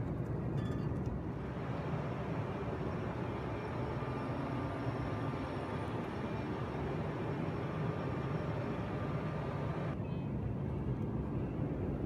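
Steady cabin noise of an Embraer E195 airliner in flight: a constant rumble of airflow and engines with a faint steady whine. A brighter hiss joins in after about a second and cuts off suddenly near the end.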